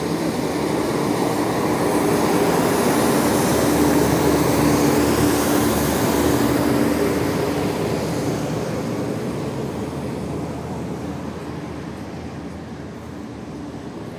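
A heavy road vehicle passing close by: a steady engine hum with a hiss of tyres or air, swelling over the first few seconds and then fading away.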